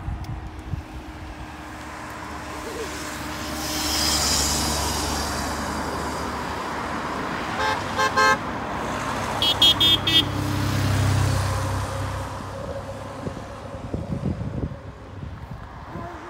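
Cycling team support cars driving past close by one after another, tyres and engines swelling and fading. About eight seconds in a car horn gives a few short beeps, followed at once by a quicker run of four or five short beeps.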